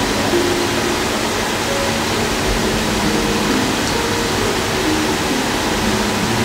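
A steady, even rushing noise with a slow, soft melody of single held notes faintly over it: background music laid over a constant hiss.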